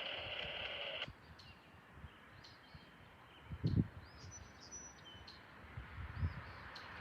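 Radio hiss cutting off sharply about a second in, like a scanner's squelch closing after a transmission. Then faint birds chirping, with a few low thumps.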